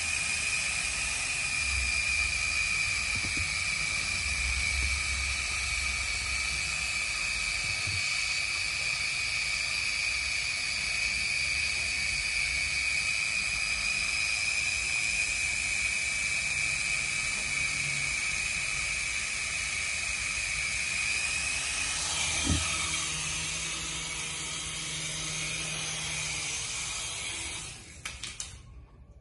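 Toy RC helicopter's small electric motors and rotor blades running with a steady high-pitched whine. A single knock comes about three quarters of the way through, and the whine dies away shortly before the end as the helicopter tumbles against a wall.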